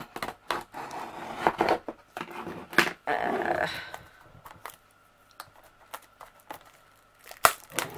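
A cardboard craft-kit box being handled and turned on a table: rustling, scraping and knocking, busiest in the first half, then a single sharp click near the end.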